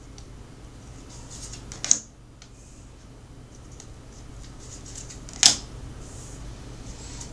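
Tarot cards being handled and shuffled: light scattered clicking of cards, with two sharp card snaps, about two seconds in and again about five and a half seconds in.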